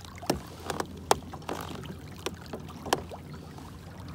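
Kayak moving through choppy water, with irregular sharp splashes of water slapping against the hull over a steady low rumble.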